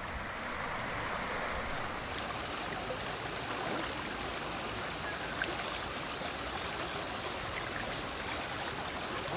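Shallow river rushing and gurgling over rocks in a steady wash. About six seconds in, a high, rhythmic pulsing at roughly two beats a second joins it.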